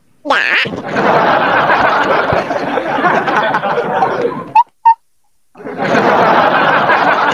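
Loud, continuous laughter that breaks off about four and a half seconds in. Two short, sharp squeaks follow, and the laughter resumes about a second later.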